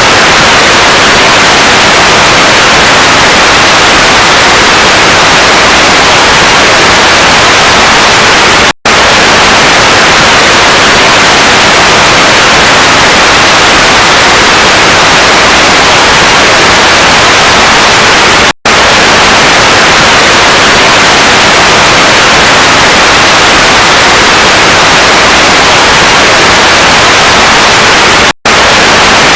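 Very loud, continuous static hiss, an even white noise across the whole range. It drops out for a split second three times, about every ten seconds.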